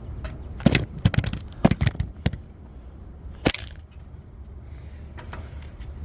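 A run of sharp clinks and clatters, bunched in the first half with one more a little past the middle, over a steady low hum.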